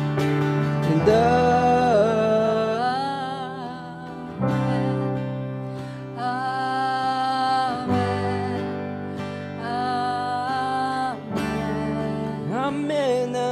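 A woman singing long, drawn-out "amen" notes over strummed acoustic guitar chords, a slow worship-song ending.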